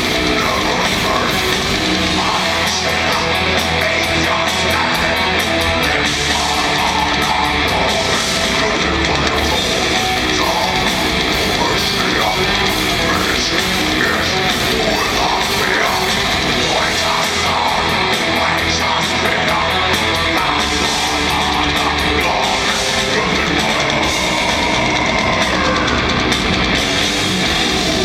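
Live heavy metal band playing loud, with distorted guitars and drums, recorded from within the audience.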